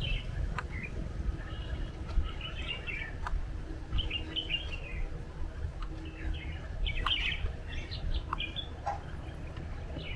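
Birds chirping in short, repeated bursts of quick high notes, over a steady low rumble.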